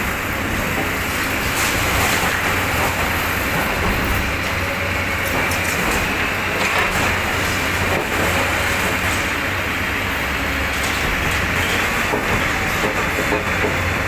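Hydraulic excavator demolishing a concrete building: the diesel engine runs steadily as the bucket breaks and crunches through the upper-storey walls, with scattered knocks and clattering of debris.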